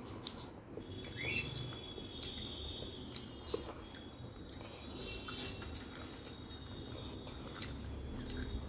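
Fingers squishing and mixing aloo dum (potato curry) in a glass bowl, with many small soft clicks, along with quiet chewing.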